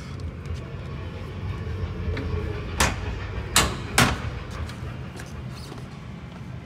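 Three sharp knocks, close together about three to four seconds in, over the steady low rumble of a large hall.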